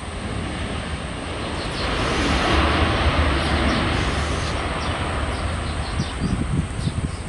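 Jet engines of a Boeing 737 on its landing roll just after touchdown: a rushing jet roar that swells about two seconds in and slowly eases off. Wind buffets the microphone near the end.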